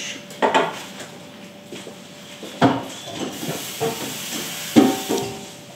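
Kitchen handling noise while a cutting board is cleaned: sharp knocks about two and a half and five seconds in, with a hiss between them.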